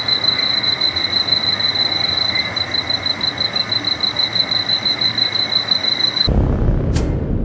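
A steady high-pitched whistle over a hiss, lasting about six seconds and cutting off abruptly, followed by a low rumbling noise with a single click near the end.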